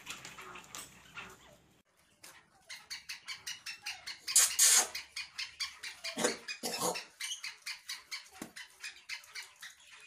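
Black francolins moving at a bamboo cage, making a rapid, even run of short clicks, about six a second, with a few louder scuffles in the middle. The clicks start up after a brief lull about two seconds in.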